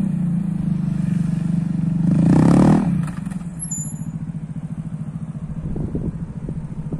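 KTM 390 Duke's single-cylinder engine pulling through a turn, with a short rev about two seconds in, then dropping to a steady, pulsing idle as the bike stops.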